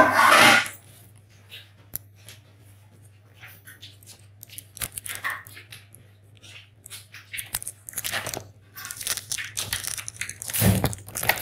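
Scattered rustles, clicks and light knocks of objects being handled in a small tiled room, over a low steady hum. A loud rushing burst comes right at the start, and louder rustling knocks come near the end.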